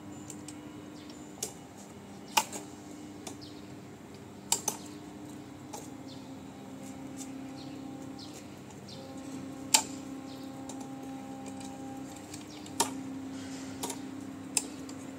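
Sharp metal clicks and knocks, about ten of them scattered a second or more apart, from the handlebar of a Jingtianlong 4.5 kW mini tiller being unlocked and swung round on its pivot. Under them is a faint steady hum.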